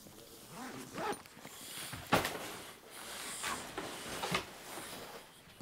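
Clothes and bags rustling as belongings are stuffed into bags, with a sharp knock about two seconds in.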